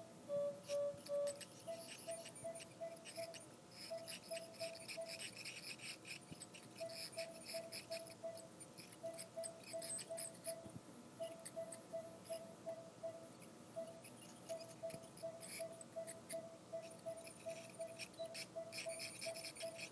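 Dental scaler working on a dog's teeth: a high thin whine that starts and stops, with scratchy hissing as the tip works along the teeth. Under it runs a steady series of short electronic beeps in quick groups.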